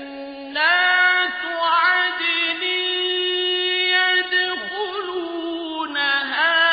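A man's solo melodic Quran recitation (tajweed) in a high voice, drawing out long held notes with ornamented turns between them. A new phrase begins about half a second in and another near the end.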